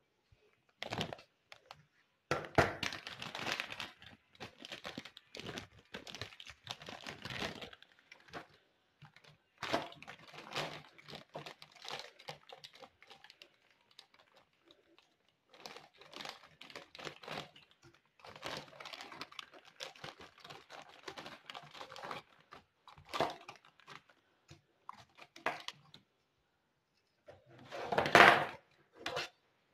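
Clear plastic bag crinkling and rustling in irregular bursts as frozen green chutney cubes are packed into it, with a few light knocks of the cubes and a louder rustle near the end.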